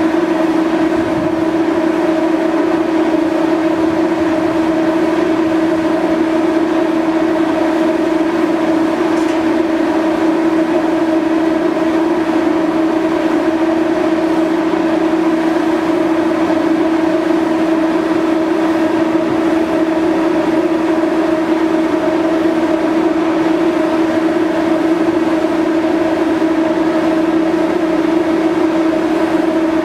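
Steady, loud machinery drone aboard a docked car ferry: an unchanging hum with a strong low tone and a weaker tone an octave above it, from the ferry's onboard machinery.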